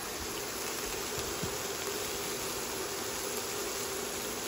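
Pork chops sizzling steadily in a hot cast iron skillet, with the induction cooktop's cooling fan humming underneath.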